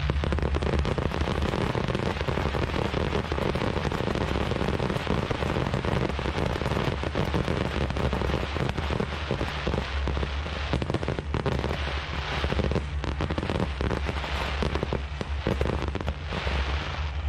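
Fireworks finale: dense, continuous crackling from many shells bursting at once, with sharper separate cracks standing out in the last few seconds, over a steady low rumble.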